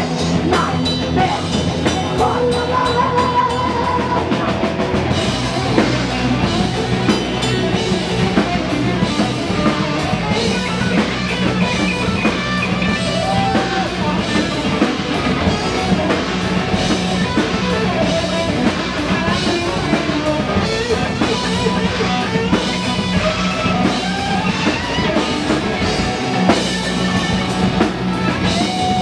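Live heavy metal band playing loud: distorted electric guitar over drum kit and bass.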